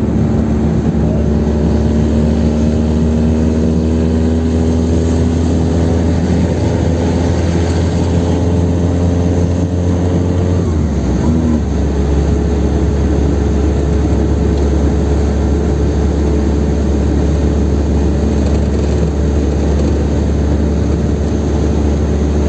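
Chevrolet Kadett 1.8's four-cylinder engine running under a steady low drone of road noise as the car drives on the highway. Its note rises slowly for about ten seconds, changes abruptly about ten seconds in, and then holds steady.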